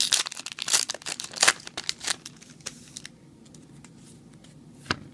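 Foil booster-pack wrapper crinkling and tearing in the hands, a dense rustle of sharp crackles for about three seconds, then quieter handling with one sharp click near the end.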